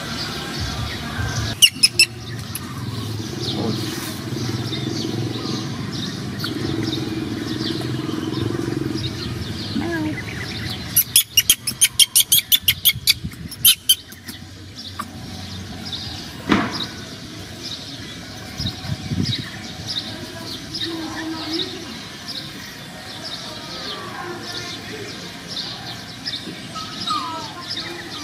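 Outdoor ambience of birds chirping steadily, with a low engine-like rumble in roughly the first ten seconds. About eleven seconds in there is a quick run of about a dozen loud clicks.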